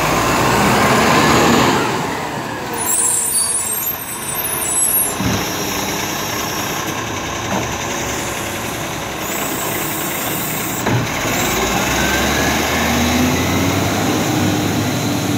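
Side-loading garbage truck with an Acco cab and Bucher body, its engine running as its automated arm lifts and empties a wheelie bin, with sharp knocks around five and eleven seconds in. Near the end the engine's pitch rises as the truck pulls away.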